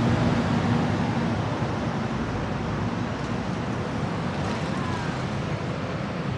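Road traffic on a busy multi-lane city street: cars, motorbikes and buses passing in a steady rumble, a little louder in the first couple of seconds and then easing off.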